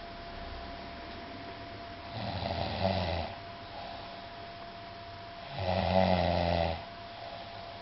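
A person snoring in deep sleep: two loud snores, each about a second long, some three and a half seconds apart.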